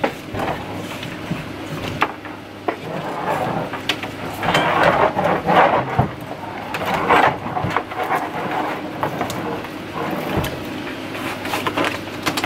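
Clicks, knocks and rattles of aluminium-extrusion frame parts and hardware being handled and fitted together while a 3D printer kit is assembled, busiest a few seconds in. Underneath, an air conditioner runs with a steady hum.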